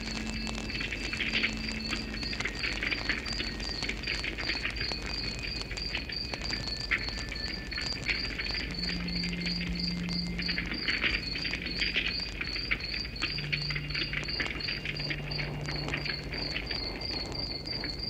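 Wood campfire crackling, with many small sharp pops and snaps, while a cricket chirps at an even, steady rate.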